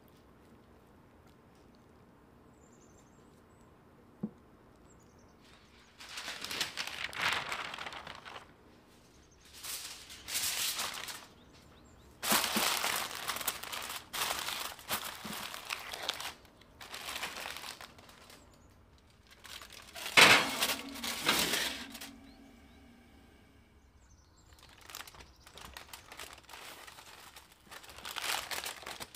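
Aluminium foil crinkling in repeated bursts of a second or two as it is wrapped and pressed down over a glass baking dish, starting after a few quiet seconds.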